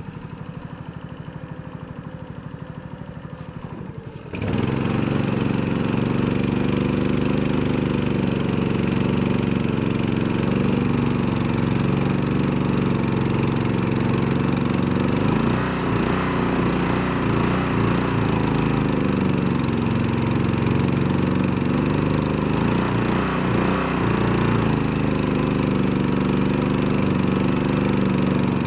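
Mud Buddy surface-drive mud motor on a canoe idling, then opened up suddenly about four seconds in and run at high, steady speed, its pitch wavering briefly twice.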